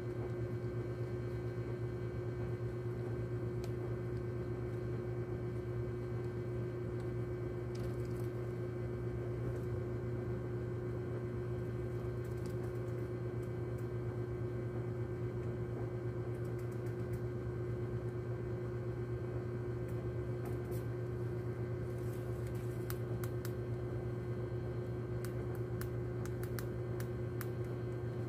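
A steady low electrical hum with a fixed higher tone over it, and faint irregular clicks and scratches that come more often in the second half: a rat gnawing blue rodenticide bait pellets and moving about on cardboard.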